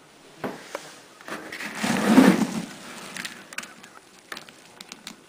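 Small pieces of wood being handled and stirred by hand in a bucket: scattered light clicks and scrapes, with a louder rustling scrape about two seconds in.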